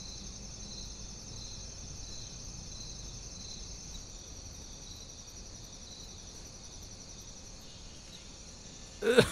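Crickets chirping steadily, a continuous high trill with a regular pulse about twice a second over a faint low rumble. A brief, louder sound cuts in at the very end.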